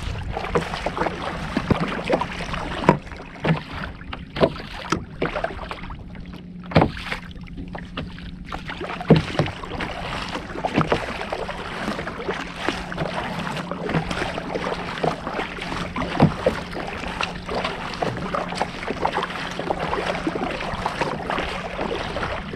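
Kayak paddle blades dipping and pulling through seawater in irregular strokes, with splashes and water washing along the hull. A faint steady low hum runs underneath.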